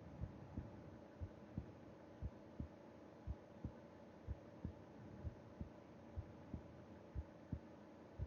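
Human heartbeat heard through the chest wall of a sleeping person: slow, even lub-dub pairs at about one beat a second, the resting rate of sleep, over a faint steady hum.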